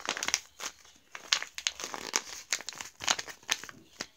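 Homemade paper squishies crinkling as they are handled: irregular crinkles and crackles of paper, stopping just before the end.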